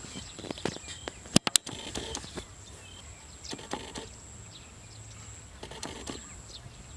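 Outdoor field ambience: scattered rustles and clicks, with a few faint bird chirps over a steady high thin whine. Two sharp clicks about a second and a half in are the loudest thing.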